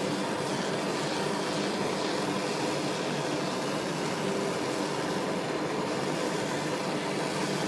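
Jeweler's soldering torch flame hissing steadily while it heats the bottom plate of a metal piece, bringing it up to soldering heat.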